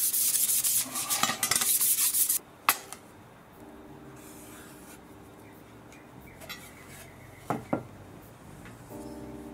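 Brisk rubbing strokes over a flat steel bar for about two and a half seconds, then a single sharp click and later two light taps as tools are set down on it.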